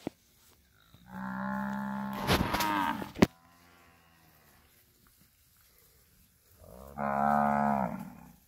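Cattle mooing: two long, deep moos, the first starting about a second in and lasting about two seconds, the second near the end. Late in the first moo there is a brief crackle and then a sharp click, the loudest moment.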